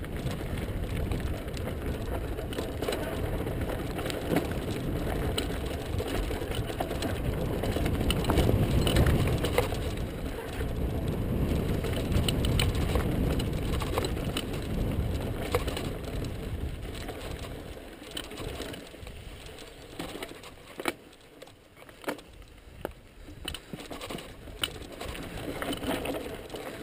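Mountain bike ridden along a rough trail: a steady rumble of tyres and bike over the ground, loudest about eight to nine seconds in, easing off after about eighteen seconds into quieter riding with scattered clicks and knocks.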